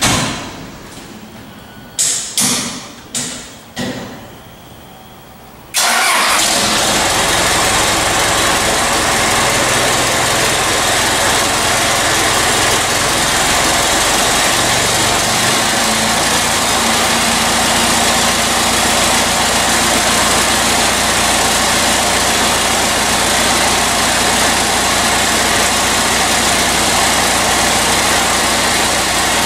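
A few sharp clunks, then about six seconds in a vehicle engine starts abruptly and runs steadily and loudly.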